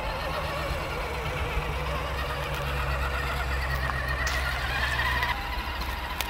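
Electric motors and gear drivetrains of 1/10-scale RC crawler trucks whining as they drive across ice. The whine rises in pitch a few seconds in, over a low hum that stops about five seconds in.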